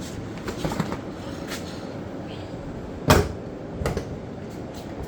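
A Lucid car making a steady, unexplained buzzing noise that keeps going on its own, with a few light clicks and one loud knock about three seconds in.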